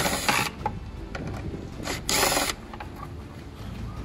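Ryobi cordless drill with an extension and Phillips bit running in two short bursts, about half a second each, at the start and about two seconds in, backing out the screws that hold a tail light.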